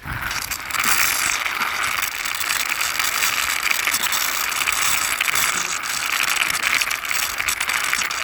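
Plastic toy truck pushed along by hand, its momentum (friction-drive) gears giving a fast, steady ratcheting whir.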